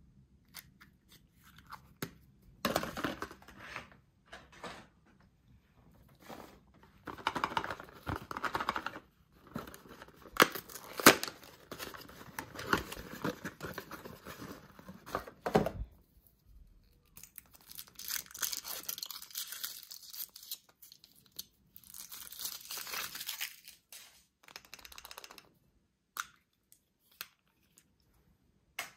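Kinder Surprise egg packaging being torn open and crinkled by hand, in irregular bursts of rustling broken by a few sharp clicks.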